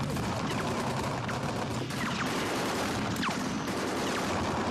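Battle gunfire: a dense, unbroken fusillade of rapid shots, with several short whistles falling in pitch over it.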